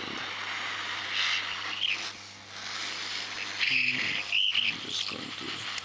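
Hot-air rework gun blowing a steady airy hiss onto a phone's circuit board, heating the solder to lift off the SIM card reader. A few short, louder sounds come about four seconds in.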